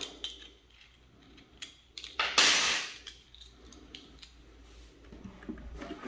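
Small clicks and taps of an Allen key and a plastic intercom mounting clamp being loosened and handled. One loud scraping rustle about two seconds in lasts under a second.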